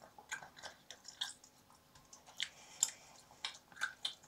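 Someone chewing a piece of candy close to the microphone: faint, irregular mouth clicks and smacks.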